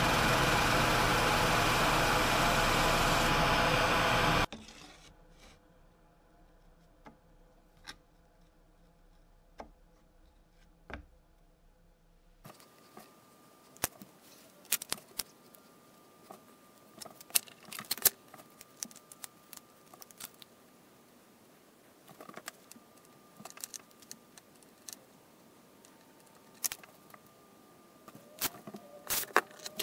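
Drill press running as a Forstner bit bores into wood, cutting off suddenly about four seconds in. After that, scattered light clicks and wooden taps as small wooden pieces are handled and set down.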